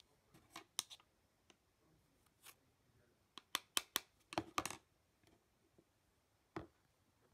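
Spoon clicking and scraping against a plastic bowl of white powder: a couple of sharp knocks about a second in, a quick run of them around the middle, and one more near the end.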